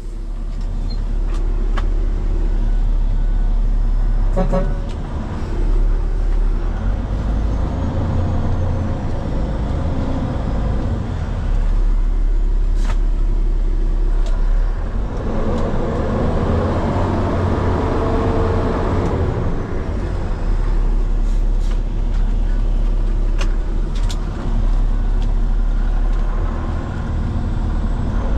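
Heavy diesel tow truck engine running steadily, with a few sharp knocks along the way and a louder stretch around the middle.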